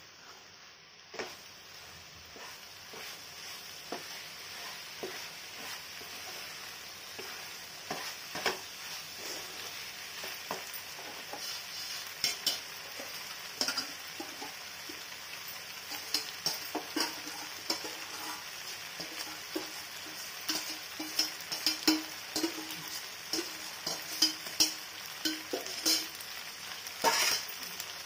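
Macaroni with paneer and masala sizzling in a non-stick wok while a spatula stirs and scrapes through it, with frequent short knocks of the spatula against the pan. The sizzle grows louder over the first few seconds, and the knocks come thicker in the second half.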